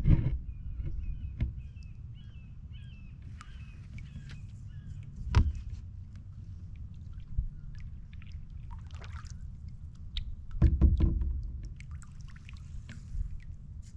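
Knocks and thumps of gear being handled in a fishing boat: one at the start, one about five seconds in, and a quick cluster of several about eleven seconds in, over a steady low rumble.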